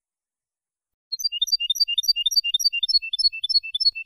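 European goldfinch (jilguero) singing Málaga-style contest song: starting about a second in, a rapid string of sharp, high notes, a short falling run of notes repeated over and over.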